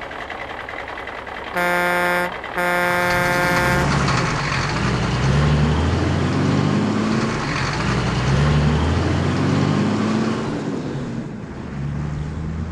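Cartoon truck sound effects: a truck engine running, two horn honks about one and a half seconds in (a short one, then a longer one), then the engine rumbling with a wavering low pitch.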